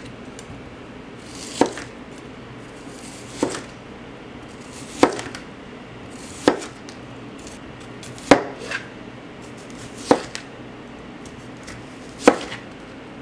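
Kitchen knife thinly slicing a white onion into rings on a plastic cutting mat. Each stroke ends in a sharp tap of the blade on the mat, about eight in all, roughly every one and a half to two seconds.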